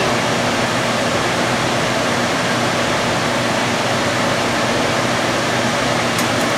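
Lampworking bench torch burning steadily: a constant rushing hiss with a low hum underneath. A few faint light clicks come near the end.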